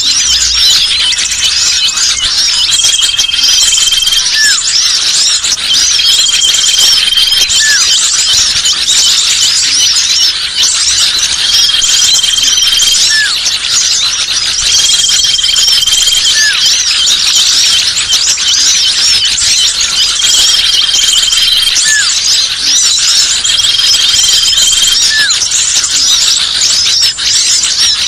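Bird-lure recording of many small songbirds chattering and calling at once in a dense, busy mix. A steady high whistle of about a second recurs every three to four seconds, with a short lower note at about the same spacing. It is a lure call used to draw hard-to-catch small birds down.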